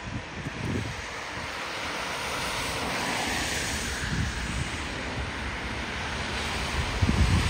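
Wind buffeting the microphone in low rumbling gusts, the strongest near the end, over a steady rushing hiss.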